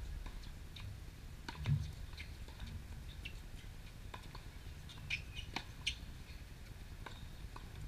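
Tennis rally on a hard court: several light, sharp taps of the ball off racket strings and court surface, spaced a second or more apart, the strongest about a couple of seconds in.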